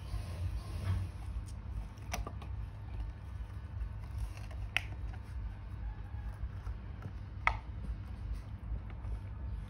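A few sharp clicks of plastic toys being handled by baby macaques, over a steady low hum.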